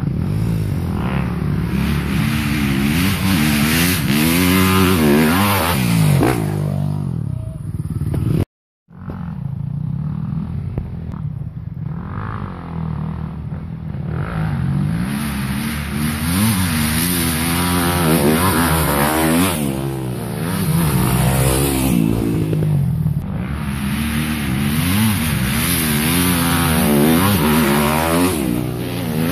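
Dirt bike engine revving hard and easing off again and again as it climbs a dirt hill, its pitch rising and falling with the throttle. The sound cuts out for a moment about eight seconds in.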